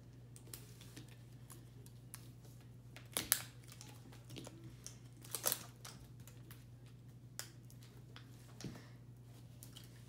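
Scattered soft crinkling and tearing of the plastic wrapping as an L.O.L. Surprise! Glitter Globe ball is picked at and peeled open, loudest at about three seconds and again at five and a half, over a faint steady low hum.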